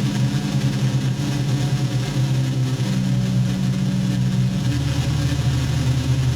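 Electronic noise-music drone: steady low buzzing tones that step to new pitches twice, over a constant hiss, sounding rather like an idling engine.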